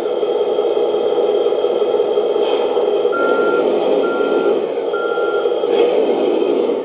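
An RC truck's electronic sound module plays a simulated truck diesel engine running steadily at full volume through the model's speaker. About three seconds in come three evenly spaced reversing beeps at one pitch, and two short hisses sound, one before the beeps and one after.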